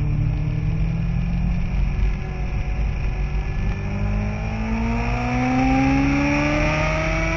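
Motorcycle engine pulling in gear, its note rising steadily through the second half as the bike accelerates, over a steady low rumble of wind and road noise.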